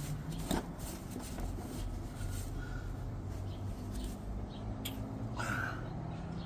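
Scattered light clicks and rustling of hydraulic crimper parts being handled and wiped clean, over a low steady hum.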